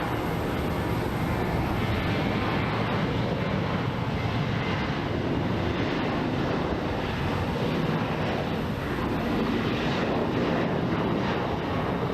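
Boeing 737 jet airliner's engines at takeoff power during departure, a steady, loud rush of jet noise with a deep rumble underneath.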